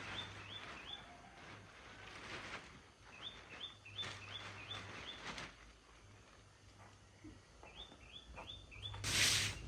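A bird calling in short series of quick rising chirps, about three a second, over faint outdoor background noise. Near the end comes a loud brief hissing noise.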